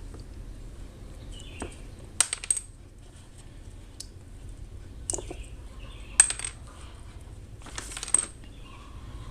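Sharp metallic clicks and clinks from the metal-shielded RJ45 plugs of a Cat8 patch cable being handled and knocked together. There are a handful of separate clicks a few seconds apart, the loudest about six seconds in, and a brief rattle near the end.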